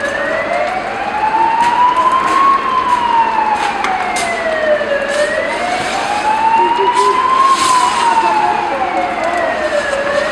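A siren wailing, its pitch rising and falling in slow sweeps of about five seconds each, with a few sharp cracks scattered through it.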